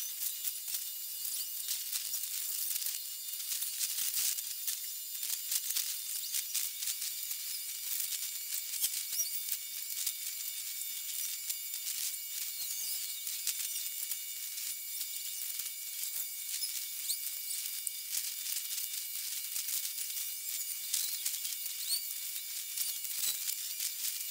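Steady high-pitched hiss with dense crackling clicks, a few thin steady whistling tones and brief chirps: ambient quayside sound sped up with the time-lapse.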